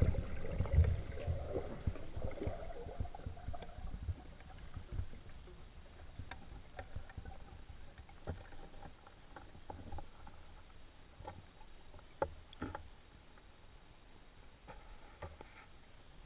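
Underwater sound picked up by a camera mounted on a speargun during a dive: a low rumble of moving water with scattered clicks and knocks, loudest in the first few seconds and then fading away.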